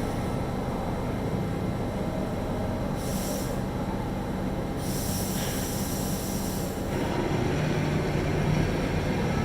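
Ficep Excalibur 12 CNC traveling-column drill running with a steady mechanical rumble and low hum. Two stretches of hiss come over it, a short one about three seconds in and a longer one from about five to seven seconds.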